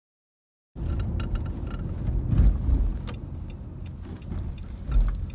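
Cabin noise in a Nissan X-Trail T32: a steady low rumble with scattered short clicks and creaks, the metal creak from the driver's seat that the video sets out to cure. It starts suddenly about three-quarters of a second in and swells twice, around the middle and near the end.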